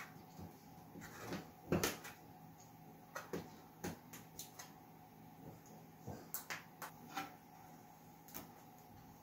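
Scattered light clicks and taps of a hobby knife working along a laser-cut birch plywood fuselage to free it from the building board, the loudest knocks about two seconds in.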